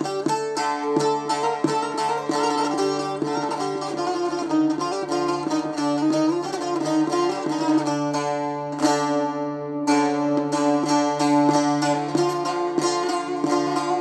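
Bağlama (long-necked Turkish saz) played solo with a plectrum: quick runs of picked notes over a steady low drone string, playing a Turkish folk tune. About nine seconds in, one struck note is left to ring out briefly before the fast picking starts again.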